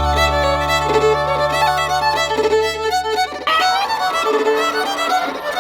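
Background music led by a fiddle playing a melody over a held low bass note; the bass note drops out about three and a half seconds in while the fiddle carries on.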